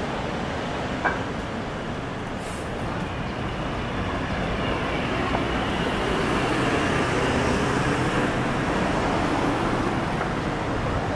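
City street traffic noise: a steady wash of passing vehicles, with one short click about a second in.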